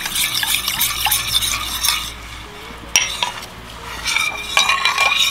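A utensil stirring a milk mixture in a mixing vessel, clinking and scraping against its sides. The stirring comes in two spells with a quieter gap in the middle, and a single sharp clink falls about three seconds in.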